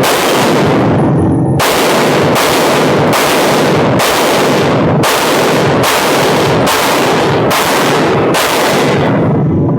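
Sig Sauer P320 RX pistol firing frangible ammunition in a rapid string of about eleven very loud shots, roughly one every 0.8 s, with a slightly longer pause after the first. Each shot rings on into the next.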